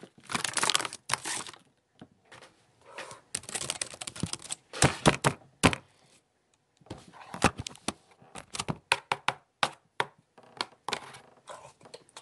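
Crunching and crinkling noises in irregular runs of sharp cracks and clicks, broken by short pauses about two seconds and six seconds in.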